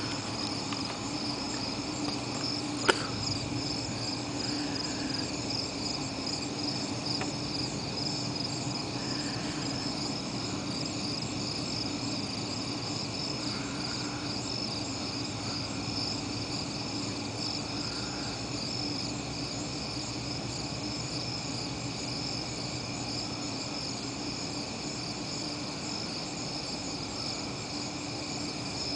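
Crickets chirring steadily in a night insect chorus, over a steady low hum. A single sharp click about three seconds in.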